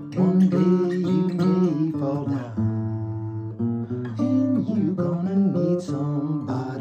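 Acoustic guitar playing a blues instrumental break: plucked notes over a bass line, some of them bending in pitch.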